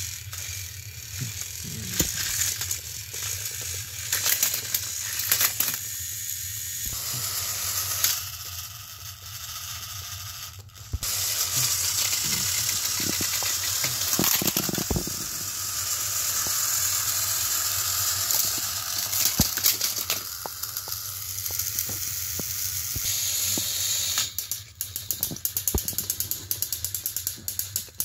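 Battery-powered Thomas & Friends toy train engines straining against each other on plastic track, their small motors and gearboxes whirring while the plastic gears click and grind as the wheels slip. A fast run of clicking comes near the end.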